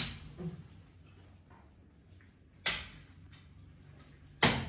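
Sharp knocks at uneven intervals: a loud one at the start, a softer one just after, and two more loud ones a little under two seconds apart later on.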